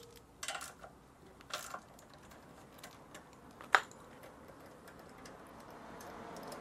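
A few quiet clicks and clinks of a hand socket wrench on the small engine's 8 mm ignition-coil mounting bolts as they are unscrewed, with one sharp click near the middle.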